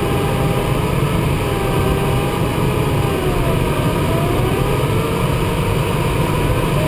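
Steady rush of airflow inside the cockpit of a DG-300 glider in flight. A faint wavering tone dips in pitch about halfway through and rises again.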